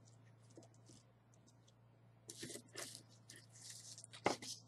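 Paper rustling and crinkling, with small clicks, as jewelry chains and pendants are handled on a paper envelope. The rustling starts about halfway in, and there is one sharp click near the end.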